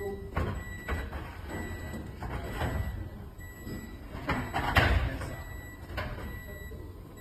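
Irregular metal clanks and knocks, about eight over several seconds with the loudest near five seconds in, over a steady low hum and a faint constant high beep tone.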